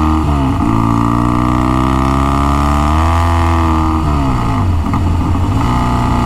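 1966 Triumph Bonneville T120TT's 650cc twin engine running under way. Its exhaust note drops in pitch just after the start, climbs again about three seconds in, falls away about a second later and then holds steady.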